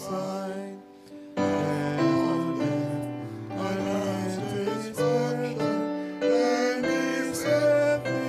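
Congregation singing a hymn to keyboard accompaniment, in held chords, with a short break between lines about a second in.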